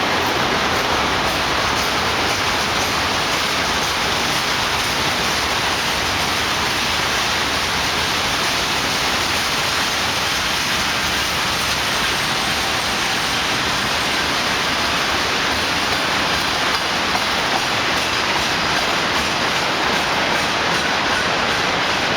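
Freight train wagons rolling past, a steady rushing rumble of steel wheels on the rails.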